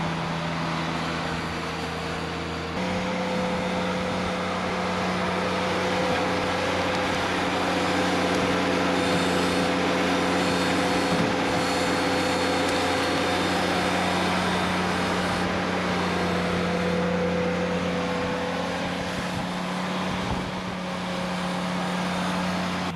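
Ventrac compact tractor engine running steadily under work. Its pitch steps up slightly about three seconds in and then holds.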